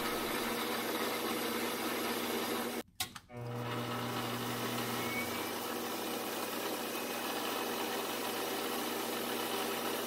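Metal lathe running steadily with a motor hum while a tool bit turns a brass workpiece. The sound drops out briefly about three seconds in, then carries on.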